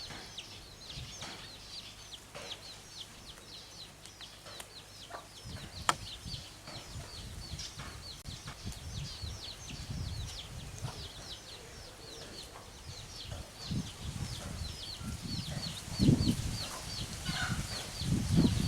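Chickens clucking as they feed, with a steady run of short, high, falling chirps two or three times a second and louder low clucks near the end.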